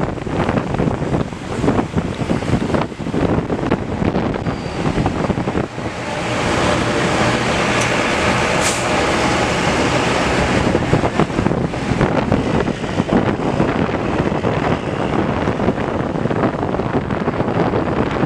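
Roadside traffic noise from passing vehicles, swelling louder from about six to ten seconds in as a large vehicle passes close by.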